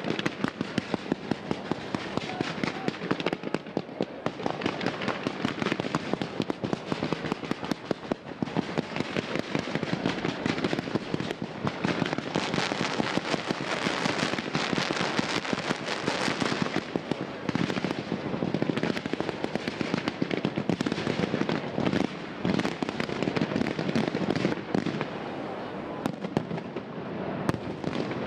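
Fireworks display firing a dense, continuous barrage: rapid pops, bangs and crackling, several a second, at their thickest midway through.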